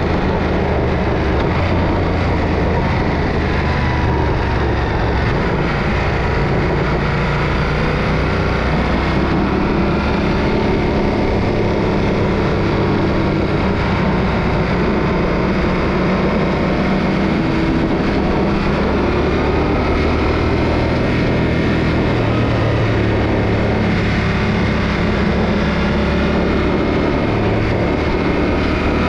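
Yamaha Ténéré 700's parallel-twin engine running under way, its pitch stepping up and down with throttle and gear changes, over a steady rush of wind and road noise.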